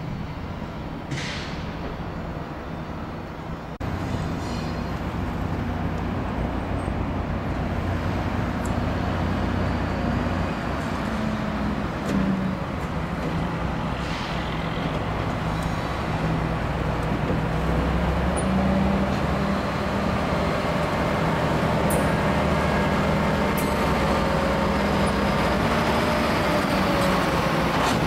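Diesel switcher locomotive engine running steadily as it moves a cut of tank cars, its low engine hum getting louder about four seconds in.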